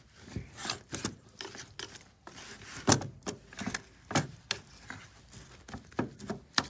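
A utensil scraping and knocking in a cook pot as leftover rice is stirred over the stove, an irregular string of short clicks and scrapes, the sharpest about three seconds in.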